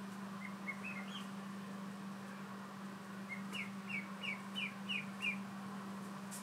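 Ducklings peeping: a few soft peeps about a second in, then a run of about six louder peeps, roughly three a second, after the three-second mark. A steady low hum runs underneath.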